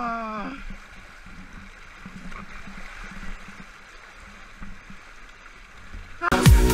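Mountain stream water rushing over rocks, opening with a short drawn-out vocal cry that slides down in pitch. Loud electronic dance music cuts in near the end.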